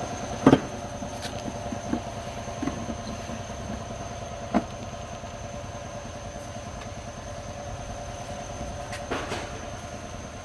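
A machine running steadily with a constant hum and a high whine, with a few sharp knocks, the loudest about half a second in.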